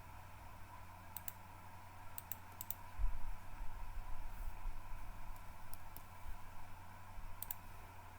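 A few scattered computer clicks, some in quick pairs, from mouse buttons or keys while drafting on a computer, over a steady low electrical hum.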